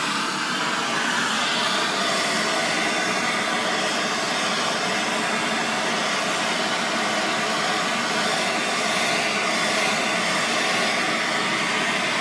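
Handheld gas blowtorch burning with a steady hiss as its flame heats a mercury retort's pot to drive mercury out of a gold amalgam.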